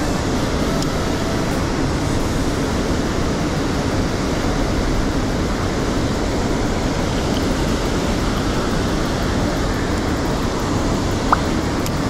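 Mountain stream water rushing steadily, with one short tick near the end.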